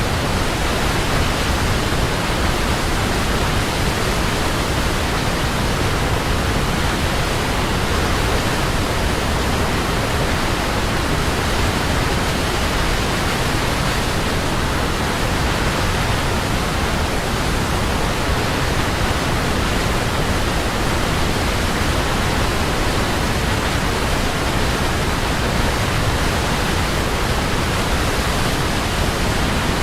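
Waterfall rushing steadily, an even, unbroken wash of falling water with no breaks or single splashes.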